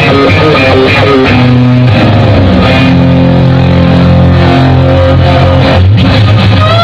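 Live rock band with a loud electric guitar lead: a quick run of notes in the first couple of seconds, then long held notes over a steady low end, with a note bent upward near the end.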